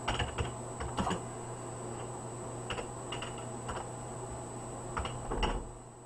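Computer keyboard keys tapped in a few short, uneven bursts, a handful of separate keystrokes spread over several seconds, as a line of code is typed.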